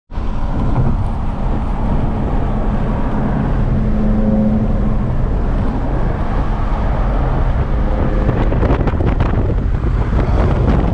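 Stage 2-tuned Audi RS3's turbocharged five-cylinder engine running at speed, heard from inside the cabin under heavy wind and road rumble. There is a run of short crackles a couple of seconds before the end.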